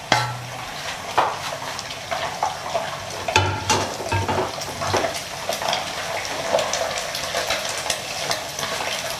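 Sugar-glazed shredded pork (moo foi) sizzling and crackling in hot oil in a nonstick wok, being fried crisp. A wooden spatula stirs it, with a few knocks against the pan.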